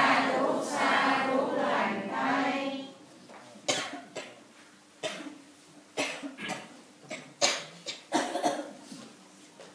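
A drawn-out voice for about the first three seconds, then a string of short, sharp coughs and throat-clearings, one to three a second, in an echoing hall.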